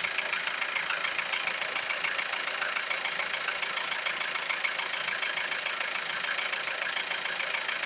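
Engine idling steadily, freshly filled with new oil, with a fast, even ticking running through it.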